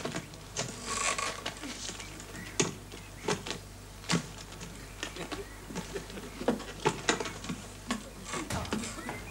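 Scattered knocks and thumps, irregular and sharp, as bags are handled and shoved into a wooden stagecoach.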